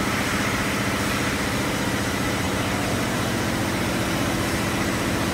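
Steady drone of a running packaging line: conveyor drives and machinery humming under a constant wash of noise, with no distinct knocks or clunks.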